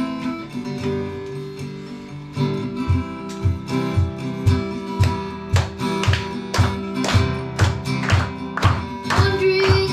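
Acoustic guitar playing a worship song: softly held chords at first, then from about two and a half seconds in a steady strummed rhythm of about two strokes a second, each with a low thump.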